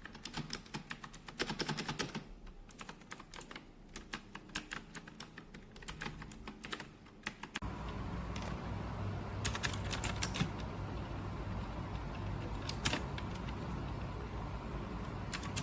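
Typing on an HJK917 mechanical keyboard with blue switches: a fast run of clicky keystrokes. About halfway through a steady low hum comes in suddenly, and the keystrokes become sparse.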